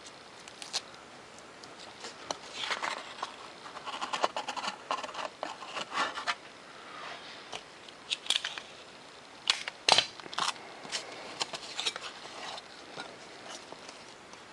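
Tape being pulled, torn and pressed down to hinge foam elevons to the wing: irregular scratchy rasps and clicks, the sharpest click about ten seconds in.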